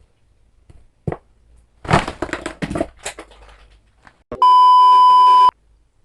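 Crisp crunching, as from bites of chicharabao (crispy carabao-skin cracklings), with a knock just before. Then, about four seconds in, a loud steady electronic beep starts, lasts about a second and cuts off sharply.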